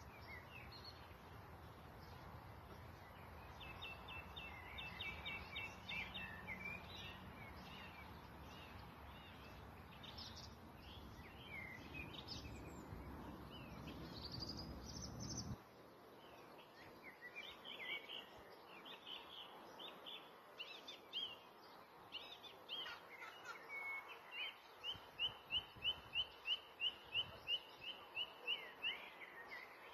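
Songbirds singing in short chirping phrases, with a run of about a dozen quick, evenly repeated notes near the end. A low background rumble stops abruptly about halfway through.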